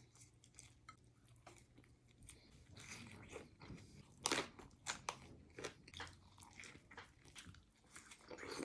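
Close-up chewing and biting of tacos with pico de gallo, a run of irregular moist crunches and mouth clicks, the loudest crunch about four seconds in.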